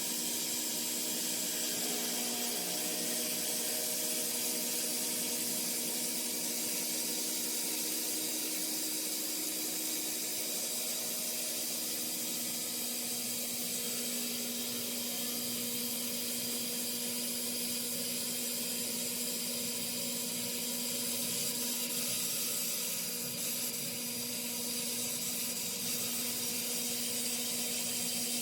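CNC woodworking machine running: a steady spindle whine of several held tones over the hiss of the cutter working wood, with some of the tones changing about twelve seconds in.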